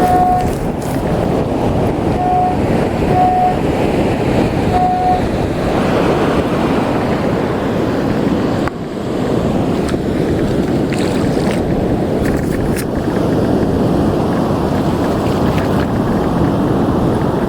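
Strong wind buffeting the microphone over breaking surf and rushing shallow water. About four short, even-pitched beeps from a Minelab Excalibur metal detector sound in the first five seconds, the detector signalling a target.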